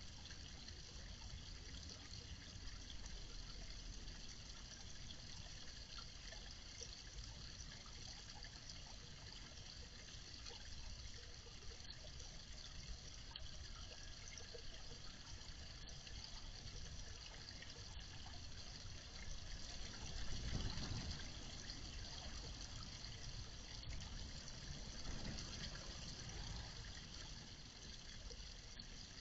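Water trickling steadily in a garden pond, with a brief louder low rumble about two-thirds of the way through.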